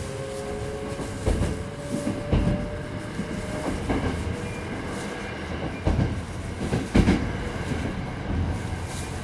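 Hankyu 8200 series electric train heard from on board, its Toshiba GTO inverter and traction motors giving a set of tones that climb slowly in pitch as the train gathers speed. The wheels thump over rail joints at irregular intervals, the loudest about seven seconds in.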